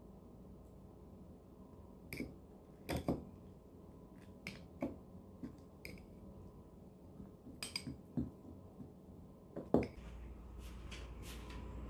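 Metal spoon clinking and scraping against a drinking glass while stirring cereal in milk: irregular clinks, a few louder than the rest, with a sharper knock near the end.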